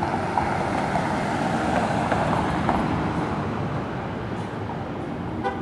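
Street traffic noise, a steady rush of passing motor vehicles that swells a little and then eases off.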